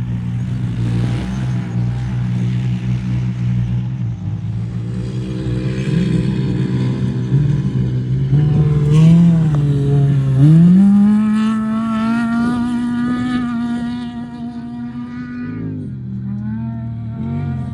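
Off-road race vehicle engine running hard, its pitch dipping and then climbing sharply about ten seconds in, holding a high steady note for several seconds, and falling away near the end.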